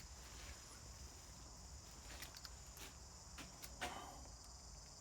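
Faint crickets chirring steadily and high-pitched, with a few light clicks and a small knock about four seconds in.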